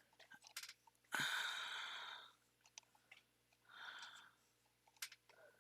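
A long breath out that fades over about a second, then a shorter, softer breath, with a few small clicks and taps from handling a plastic light clip.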